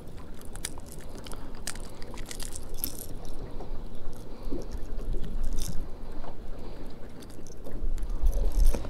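A lipless crankbait's treble hooks being worked free of a caught white bass's mouth by hand: scattered clicks and scrapes of lure, hooks and fish being handled. Low wind rumble on the microphone comes and goes, strongest near the end.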